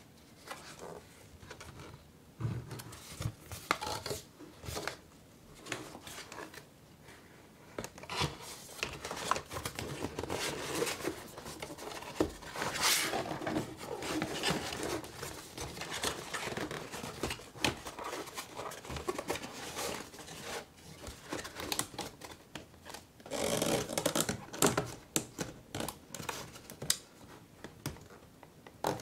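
Printed cardboard of a paper-craft kit being folded, slid and pressed into place by hand: irregular rustling and scraping of card with scattered small clicks and taps, louder in a couple of stretches.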